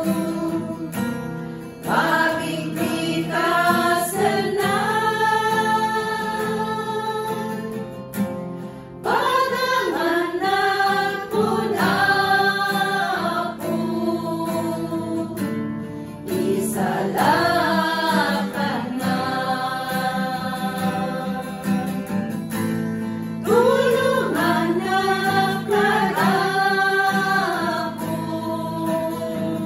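A small group of women singing a hymn together in Ilocano, accompanied by a strummed acoustic guitar, in phrases of held notes with short pauses for breath.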